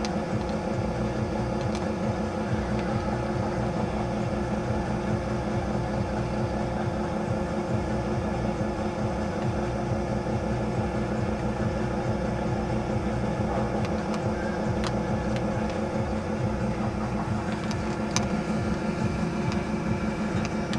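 A steady low machine hum made of several steady tones, with a few faint ticks late on.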